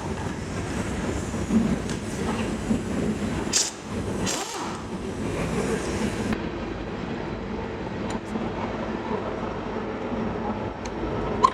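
Predator 212cc single-cylinder engine of a go-kart running steadily, with a brief dip about four seconds in; it still runs after ten months out in the rain.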